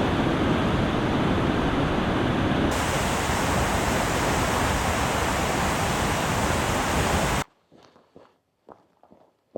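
Waterfall rushing: a loud, dense, even noise that cuts off suddenly about seven and a half seconds in.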